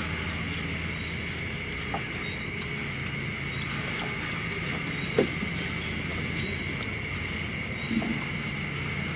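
Steady night insect chorus, a continuous high trill, under a low hum that drops away within the first second. Two short soft knocks, about five and eight seconds in, as fish are worked out of the gill net into the canoe.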